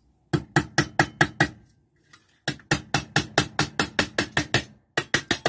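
Small hammer tapping a panel pin through two layers of tin-can sheet into a wooden block. The light, ringing strikes come about five a second, in three runs separated by short pauses.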